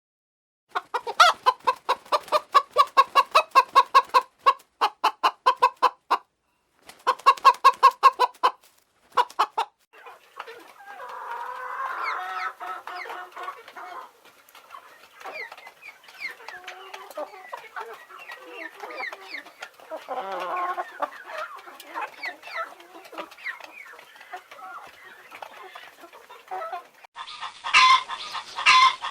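Domestic chickens clucking: first a hen's rapid runs of clucks in several bursts, then a flock's many overlapping clucks and calls. Near the end a louder burst of calls comes from a different recording.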